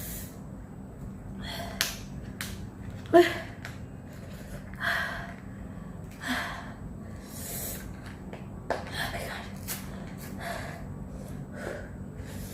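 A person gasping and breathing hard in short hissing bursts every second or two, a reaction to the burn of ghost-pepper spicy noodles, with a few small clicks.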